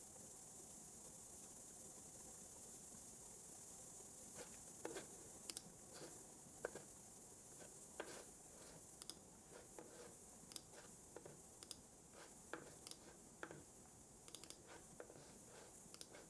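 Sparse, irregular clicks of a computer keyboard and mouse, starting about four seconds in, over a steady faint hiss.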